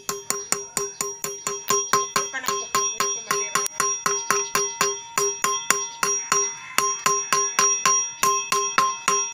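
A claw hammer strikes the hub of a motorcycle alloy wheel over and over, at about five blows a second, to knock out the worn wheel bearing. Each blow rings out with a clear, bell-like metallic tone.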